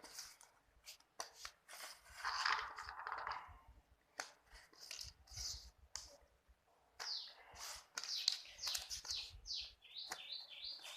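Plastic toy train track pieces being handled and snapped together: scattered clicks and rustling. Small birds chirp in the background, most clearly near the end.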